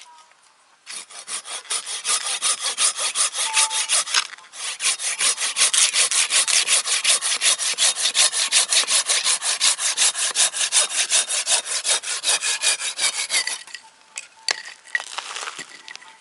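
Hand saw cutting through firewood with fast, even back-and-forth strokes. It pauses briefly about four seconds in and stops near the end.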